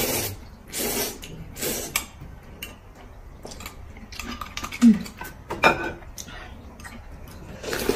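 Noodles being slurped and soup sipped from a spoon, in several short noisy bursts, with light clinks of cutlery against the bowls. A brief hummed "mm" comes about halfway through.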